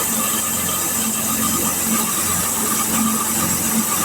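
Portable sawmill's engine running steadily, with a constant whine above its pulsing note.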